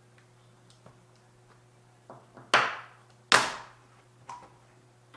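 Plastic clacks and knocks as a laptop's bottom case cover is slid off and handled: a few light clicks, then two sharp knocks about halfway through and a smaller one near the end.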